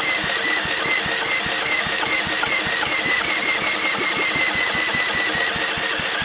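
A cordless drill on the flywheel nut cranking the small single-cylinder engine of a 1950s Toro Sportlawn reel mower: a steady drill whine over a rapid run of chuffs from the engine turning over. The engine does not catch and run.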